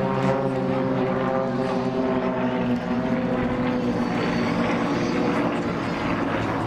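Piston engines and propellers of four aerobatic monoplanes flying in close formation, running steadily, their engine note slowly falling in pitch as they pass.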